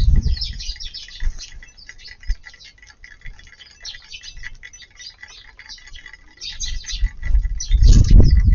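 A flock of Eurasian tree sparrows chirping, many short overlapping chirps. A low rumble rises near the end and grows louder than the birds.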